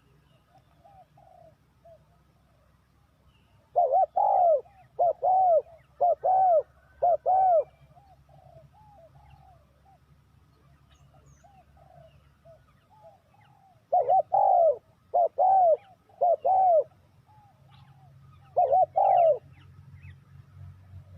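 Spotted doves cooing. A close bird gives runs of loud, rounded coo phrases, first four in a row, then three, then a short run near the end. Fainter coos from other doves come in between.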